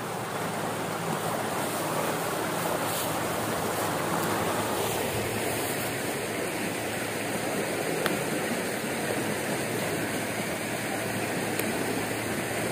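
Swollen, muddy creek water rushing and swirling past snags and the bank in a steady rush; the sound shifts slightly about five seconds in.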